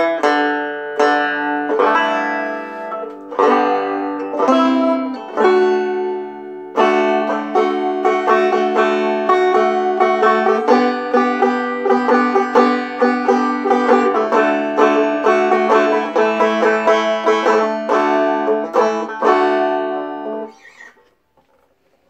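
Deering Eagle II five-string resonator banjo played solo: a few slower phrases, then a steady run of quick picked notes that ends about twenty seconds in, the last notes ringing off.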